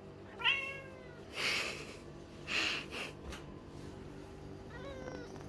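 Lynx point Siamese cat giving a short meow that falls in pitch about half a second in, then a quieter meow near the end. In between are a few soft rustling noises and a click as a hand pats and rubs its fur.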